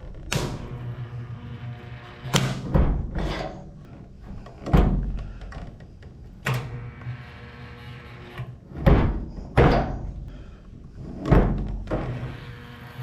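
Heavy metallic thunks, about nine, coming every one to two seconds, each with a short ring: a dent puller jerking on studs welded to the Jeep CJ5's steel hood to pull out a dent. Background music plays throughout.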